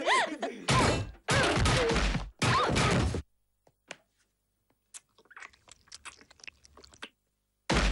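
Cartoon fight sound effects: a short cry, then three loud bursts of beating and scuffling in the first three seconds. After a pause come faint chewing and crunching sounds as the girl is bitten.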